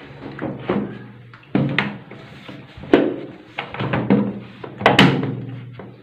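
Hollow thunks and knocks of a plastic washing-machine casing being shifted and fitted by hand, a series of sharp knocks, the loudest about three and five seconds in.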